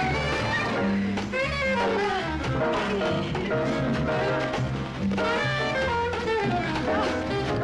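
Film score music in a jazz style, with horns playing a melody that bends in pitch over bass and drums.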